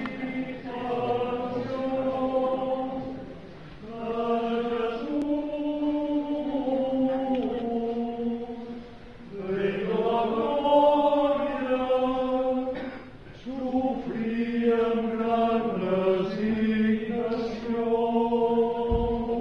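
A men's choir singing a Holy Week cobla. The sustained, held notes come in four phrases, with short breaks between them.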